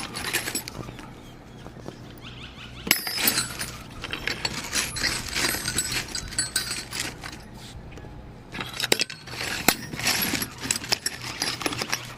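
Metal drill bits clinking and rattling as they are handled and sorted, in several bursts of clatter with pauses between.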